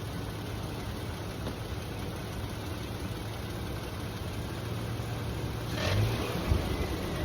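Toyota truck engine idling, then a brief blip of the throttle about six seconds in, followed by a single sharp knock. This is the rattle that comes just off idle on a throttle tap, which the owner traces to the air-conditioning compressor and suspects is a bad bearing.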